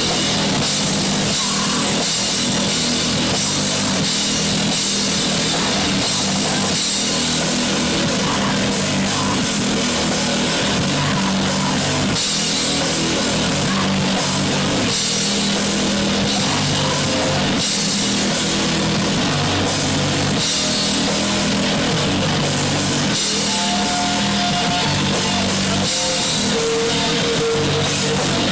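Punk rock song with distorted electric guitars and a full drum kit.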